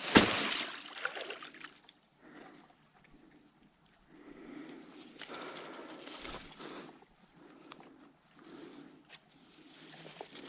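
A sharp knock just after the start, then faint scuffing and rustling, with a steady high-pitched whine throughout.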